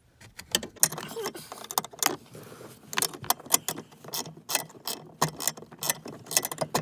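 Socket ratchet clicking in quick, irregular runs as a screw is backed out.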